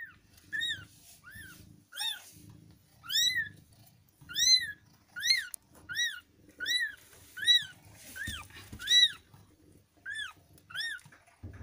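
Newborn kitten crying: a long series of short, high-pitched mews, each rising and then falling in pitch, coming about once or twice a second.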